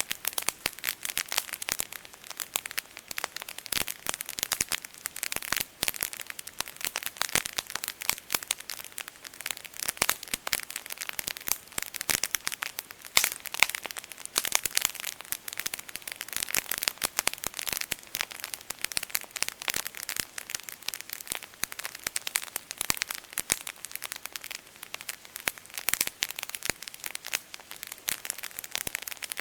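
Wood campfire crackling, a steady stream of rapid, irregular snaps and pops.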